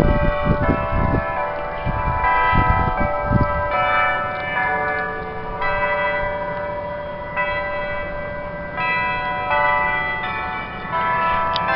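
Several church bells of different pitches ringing at noon, a new strike roughly every second, each ringing on and overlapping the next. A few low rumbling thuds sound in the first few seconds.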